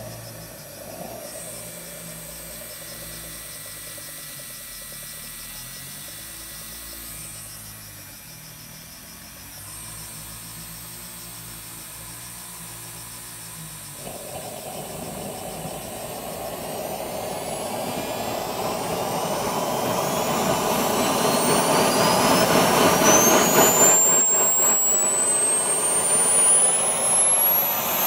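JetCat P20 model jet turbine starting up: a quiet whir for the first half, then about halfway a rushing noise builds and a high whine climbs steadily in pitch and grows louder as the turbine spools up.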